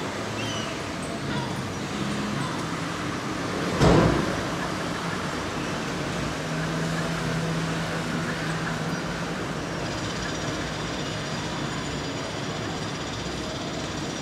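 Street traffic noise, a steady rumble, with one sudden loud thump about four seconds in and a low engine hum for a few seconds afterwards.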